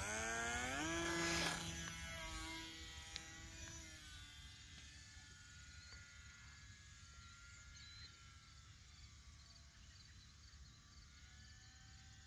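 A small radio-controlled trainer airplane's motor and propeller whining up in pitch at full throttle on the takeoff run. It is loudest about a second and a half in, then drops in pitch and fades to a steady distant drone as the plane climbs away.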